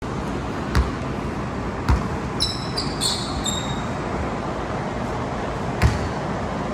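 A basketball bouncing on a hardwood gym floor, three separate thumps, with a few short high sneaker squeaks near the middle as the player moves into a jump shot. A steady rushing noise runs underneath.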